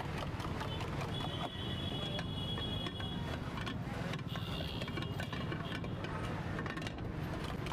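Steady low rumble of busy street noise, with scattered light clicks and clinks.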